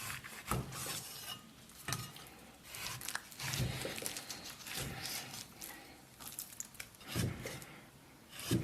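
Kitchen knife working pork rump on a wooden cutting board: irregular knocks of the blade against the board, about one every second or two, with light rubbing and scraping between them.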